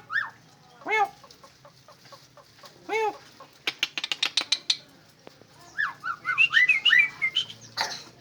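Javan pied starling calling: three short arched calls, then a quick run of clicks and a flurry of chattering whistled notes, with a brief noisy burst near the end.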